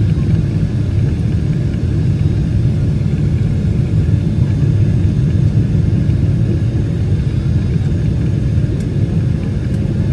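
Steady low rumble of an airliner's jet engines and rushing air, heard inside the passenger cabin as the plane descends on approach, with a faint steady hum above it.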